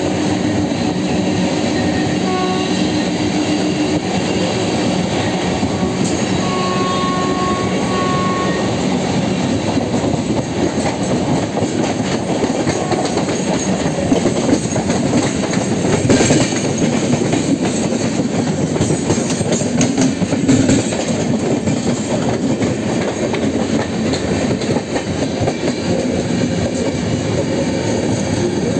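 Loud, steady rail noise of passenger trains running side by side, heard through an open train door: wheels rumbling on the track with clickety-clack over the rail joints. A short high-pitched tone sounds about seven seconds in.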